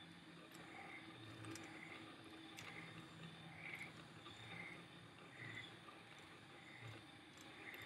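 Faint rain: a soft, even hiss with a few scattered drops ticking, and a soft blip recurring about once a second.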